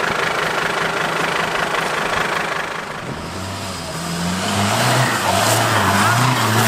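Off-road 4x4 engine running, then from about three seconds in revving up and down repeatedly in short rises and falls.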